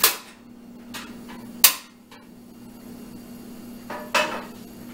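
Sharp clicks and knocks as a frying pan is set onto a portable butane stove and the stove's knob is turned to light it. There is a loud snap at the start, another a little before halfway, and a double click about four seconds in.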